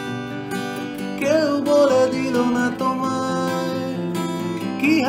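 Acoustic guitar strummed in held chords, accompanying a man's singing voice that comes in with a wavering sustained note about a second in and again near the end.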